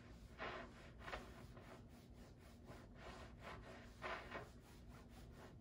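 Faint rubbing swishes of a Cricut EasyPress Mini mini iron sliding over fabric on a pressing mat, in a few brief strokes.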